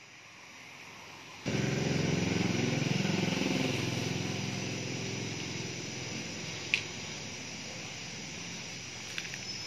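An engine running close by, coming in suddenly about a second and a half in and slowly fading away.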